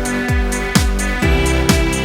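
Electronic background music with a steady kick drum about twice a second under held chords; the chord changes about a second in.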